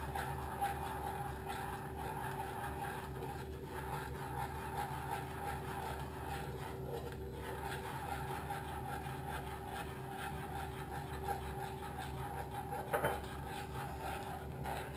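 A utensil stirring and scraping in a small nonstick saucepan as warm cream is mixed into caramel sauce off the heat, a steady rubbing over a faint steady hum, with one light knock near the end.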